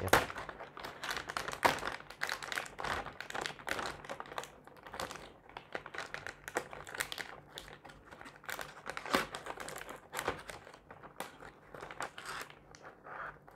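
Clear plastic bag wrapped around an air purifier filter crinkling as hands pull and handle it, in a stream of irregular crackles.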